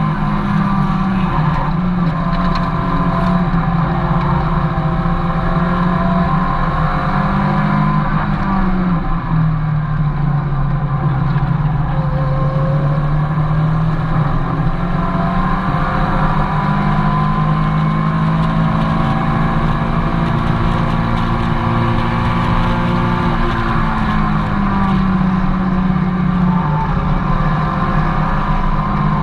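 Mazda MX-5's four-cylinder engine heard from inside the cabin under hard track driving, running continuously with its pitch stepping down and back up a few times as the driver works the throttle and gears.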